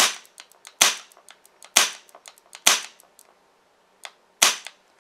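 Homemade HPA airsoft engine in an SR-25 gearbox, run by a solenoid valve, firing five single shots of air about a second apart, each a sharp pop, with fainter clicks between them. The shots are spaced by a semi-auto sniper delay set to 0.8 seconds in its Bluetooth fire control unit.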